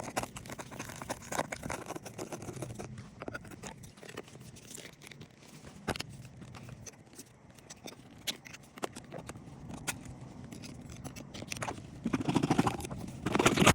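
Scattered clicks and scrapes, with a louder stretch of scraping or rustling over the last two seconds.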